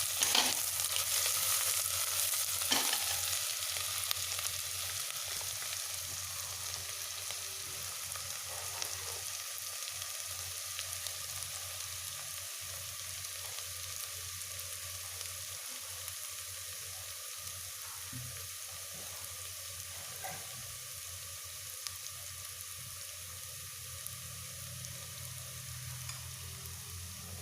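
Shallots sizzling in hot coconut oil in a pressure cooker, a steady frying hiss that slowly quietens as the onions brown. There are a couple of sharp clicks in the first few seconds.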